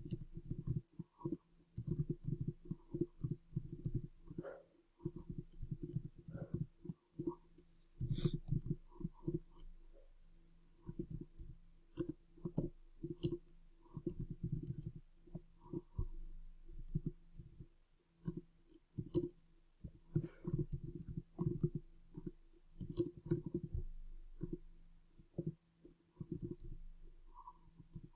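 Typing on a computer keyboard: irregular runs of key clicks, each with a low thump, with short pauses between runs. A faint steady hum sits underneath.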